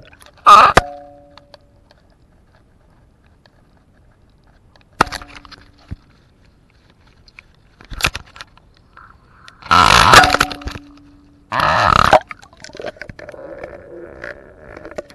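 Fishing line running through fingers, heard through a camera rig hanging on the line as loud, short rasping bursts. There are about five of them, and the two longest and loudest come near the end.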